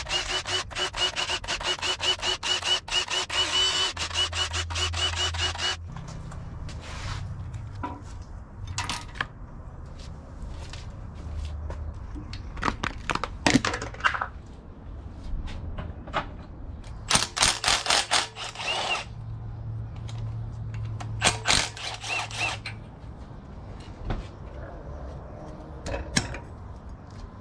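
Power wrench rattling in one long burst of about six seconds, then in shorter bursts further on, with scattered knocks and clanks of metal parts in between, as bolts come out of a Honda B20Z2 engine being torn down.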